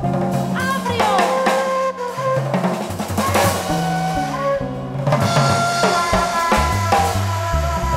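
Instrumental jazz-ethnic passage: a ney (end-blown cane flute) plays a melody with sliding pitch bends over electric bass notes and a drum kit.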